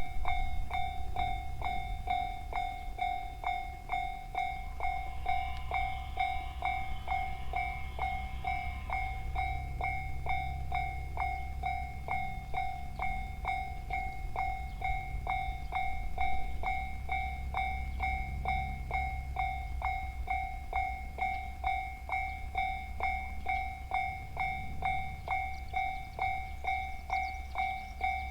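Japanese level-crossing warning bell sounding its rapid, even kan-kan strokes while a train rumbles past.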